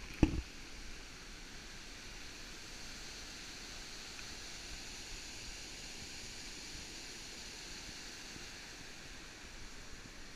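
Steady rush of river water pouring over a low weir and through rapids, heard as an even hiss. A single sharp knock sounds just after the start.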